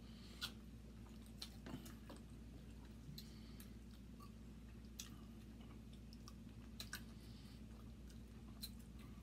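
Faint close-up eating sounds from a seafood boil: chewing and mouth smacking, with scattered small sharp clicks as crab legs are picked apart, over a low steady hum.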